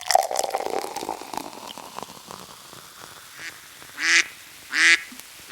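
A series of short, loud, nasal quack-like calls, about one every three-quarters of a second, starting about three and a half seconds in. Before them comes a burst of crackling noise with a falling tone.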